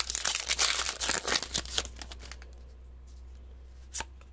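Magic: The Gathering booster pack's foil wrapper crinkling and tearing as the pack is opened, for about two and a half seconds, then one sharp tap near the end.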